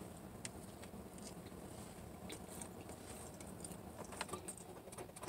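Faint chewing of a biscuit, with scattered small clicks and mouth noises.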